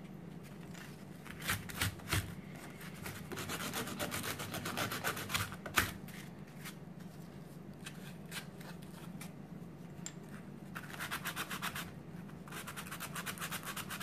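Hand sanding of small wooden pieces with sandpaper wrapped on a small block: quick back-and-forth scraping strokes, in a long run from about 3 to 6 seconds in and again from about 11 seconds in. A few sharp knocks come between, the loudest about six seconds in.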